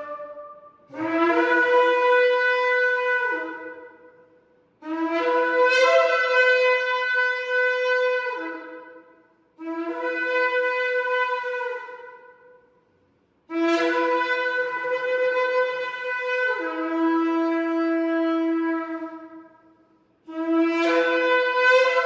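Shofar blown in a series of five long blasts, each a few seconds long, with short pauses between them; one blast shifts to a different note partway through.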